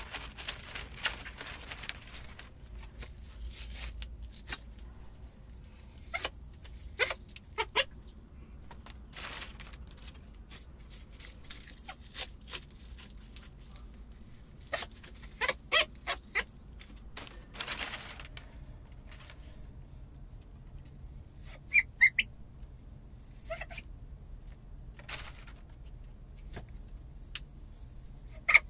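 Dry cattail leaves crackling and rustling as they are handled and woven by hand, in irregular short crackles. A few short high squeaks come in the second half.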